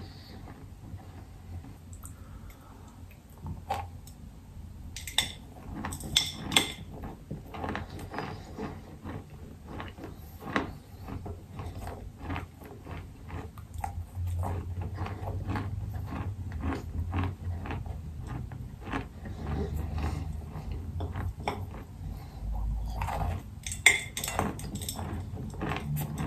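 Chewing and crunching of a clay-chalk block: a steady run of small crisp crunches, with a few louder sharp bites. There are also light knocks of fingers picking pieces from a glass bowl.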